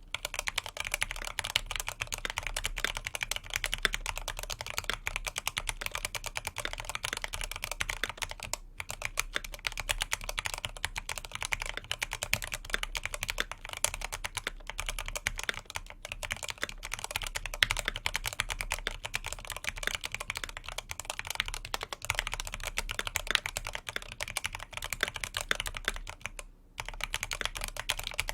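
Fast, continuous typing on a tenkeyless mechanical keyboard with factory-lubed C3 Equalz Banana Split linear switches and dye-sub PBT keycaps, a rapid clatter of keystrokes. It starts abruptly and breaks off briefly twice, once about nine seconds in and once near the end.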